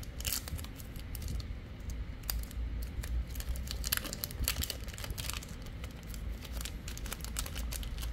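Digimon card game booster pack wrapper crinkling and trading cards being handled by hand, a run of irregular crisp rustles and clicks.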